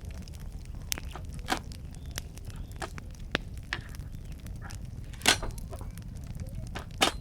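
Campfire crackling over a low steady rumble, with scattered sharp pops of burning wood and a quick run of louder cracks near the end.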